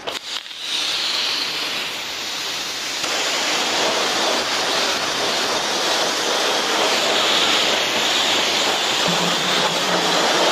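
A high-pressure car-wash wand sprays a jet of water onto a car's front end, making a loud, steady hiss. It starts with a few clicks, and a low steady hum joins near the end.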